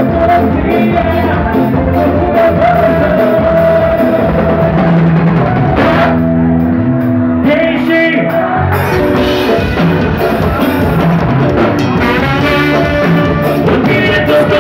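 Live band playing loud with a singer, drum kit, electric guitar and keyboard. About six seconds in the drums and cymbals stop for two or three seconds, leaving held chords, then the full band comes back in.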